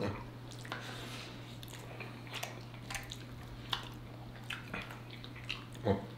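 Close-up chewing and wet mouth sounds from people eating collard greens and soul food, with scattered small smacks and clicks over a faint steady low hum.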